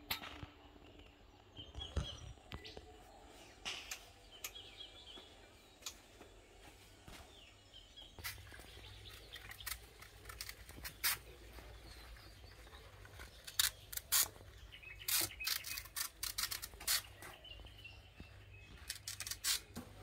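Irregular clicks, knocks and crinkling from banana leaves and kitchen things being handled, busiest in the second half. Birds chirp faintly in the first few seconds.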